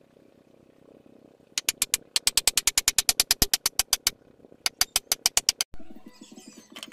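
Rapid, evenly spaced mechanical ratcheting clicks, about ten a second, from a tool working on a wooden bed frame. They come in a run of about two and a half seconds, then after a short pause a second run of about a second. Near the end the sound cuts abruptly to a low, buzzy rhythmic hum.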